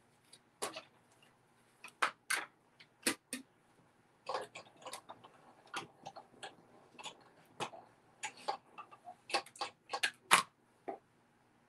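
Irregular light clicks, taps and knocks of craft tools and supplies being handled, scattered unevenly with the sharpest knock about ten seconds in.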